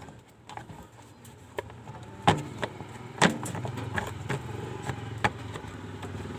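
Plastic side cover of a Honda Supremo motorcycle being pressed and snapped into place by hand: a few sharp clicks and knocks, the loudest about two seconds in and again a little over three seconds in. From about three seconds in, a steady low engine hum runs underneath.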